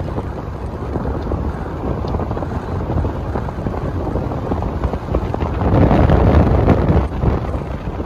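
Wind buffeting the microphone over the low rumble of a car driving along a paved road, growing louder for a moment about three-quarters of the way through.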